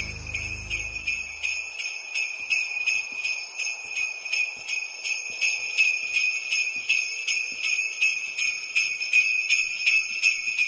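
Jingle bells shaken in a steady rhythm, about three shakes a second, ringing bright and high. Low background music underneath fades out about a second and a half in.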